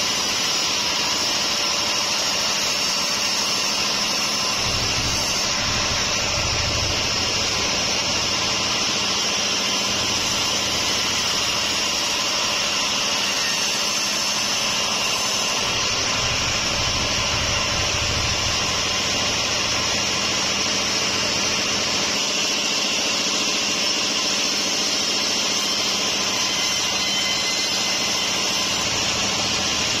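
Band-saw sawmill blade running and cutting lengthwise through a large wadang log: a steady, high-pitched sawing hiss. A low rumble swells up twice, about five seconds in and again about sixteen seconds in.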